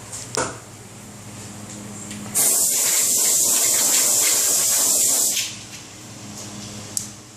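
Compressed-air blow gun blowing off the wheel: a loud, steady hiss that starts about two seconds in and lasts about three seconds. A steady low machine hum runs underneath.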